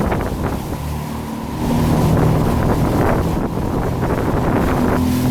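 Jet ski engine running under way, with wind buffeting the microphone and water rushing past. The engine eases off about a second in, then picks up again.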